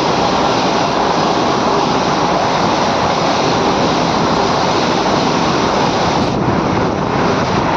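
Vande Bharat Express electric trainset passing at speed: a loud, steady rush of wheel and air noise, with wind buffeting the microphone. The hiss thins a little about six seconds in.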